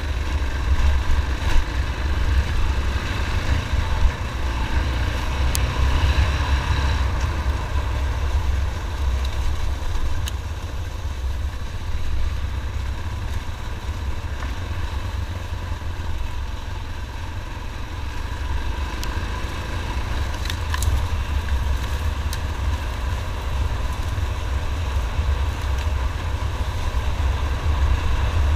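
Yamaha motorcycle engine running steadily while riding a rough dirt trail, with a heavy low wind rumble on the microphone.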